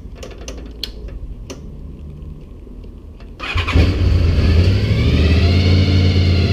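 A few sharp clicks, then a Honda VFR's V4 engine is started about three and a half seconds in. It catches with a brief flare and settles into a steady idle.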